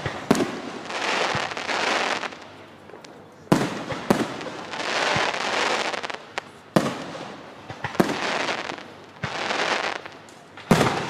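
Aerial firework shells bursting overhead: about seven sharp bangs at irregular intervals, each trailing off over a second or two.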